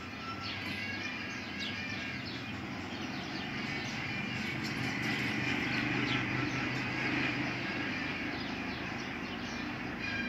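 Steady background ambience with faint short bird-like chirps, and a broad rise and fall in the noise through the middle, like traffic passing.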